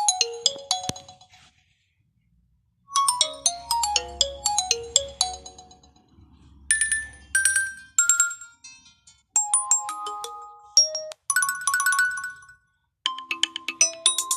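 Nokia 2.1 phone ringtones playing one after another: several short, bright electronic melodies, each a few seconds long, with brief silent breaks between some of them.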